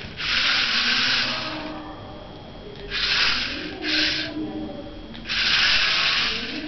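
Small DC motors of a radio-controlled four-wheel robot car whirring in four bursts as it is driven in short runs. The first and last bursts last over a second each; the middle two are short and close together.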